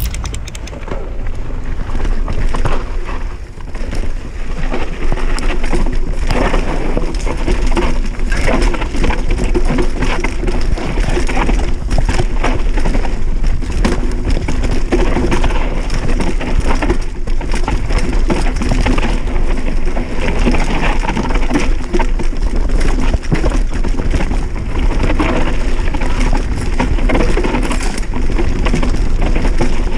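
Giant Reign Advanced 1 full-suspension enduro mountain bike running down a steep rocky trail: tyres crunching over loose stone and dirt, with constant rattling and knocking from the bike over the rough ground. Wind rumbles on the microphone.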